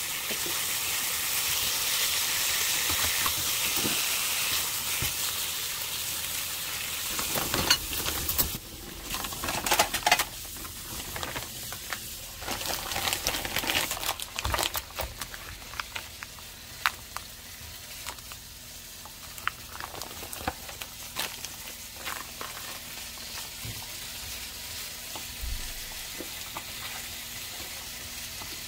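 Thin pork slices with sauce sizzling in a frying pan as they are stirred with a spatula, loud and steady for about the first eight seconds. Then the sizzle falls back and scattered sharp knocks and taps follow on a wooden cutting board.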